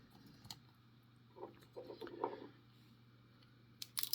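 Light clicks and taps from handling a gutted pin-tumbler lock and its small metal parts, with a few duller knocks in the middle and a quick pair of sharp clicks near the end.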